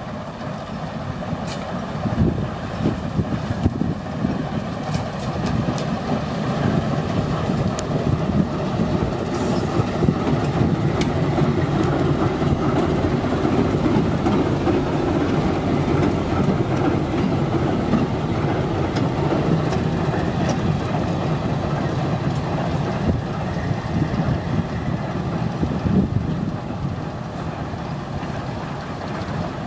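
TEM17 shunting diesel locomotive running past close by. Its engine noise grows louder as it draws level and fades as it moves away, with a few sharp knocks along the way.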